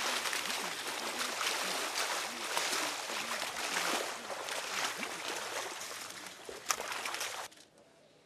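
Muddy water splashing and sloshing as soldiers crawl on their bellies through a shallow flooded pit, with irregular splashes throughout; the sound cuts off abruptly near the end.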